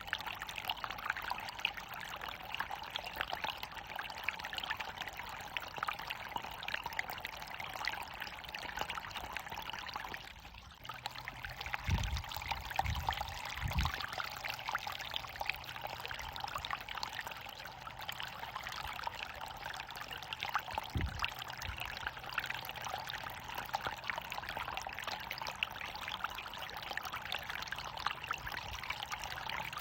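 Running water pouring and splashing steadily. The flow briefly drops about a third of the way in, and a few low thumps come soon after and once more past two-thirds of the way.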